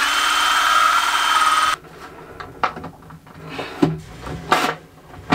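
Power drill with a hole saw running steadily as it cuts through a wooden boat bulkhead, stopping abruptly less than two seconds in as it breaks through. A few light knocks and clicks follow.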